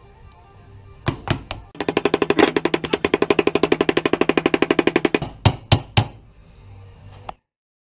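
Ball-peen hammer striking a punch to drive a roll pin into a shift fork of a Toyota RF1A gear-drive transfer case. A few single metal strikes about a second in, then a rapid, even run of taps at about ten a second for some three seconds, then a few more single strikes. Faint background music runs under it, and the sound cuts off suddenly near the end.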